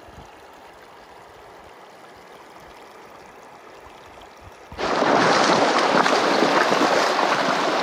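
Running water of a shallow river: faint and soft for the first few seconds, then, about five seconds in, a sudden switch to a loud, steady rush of water over cobbles.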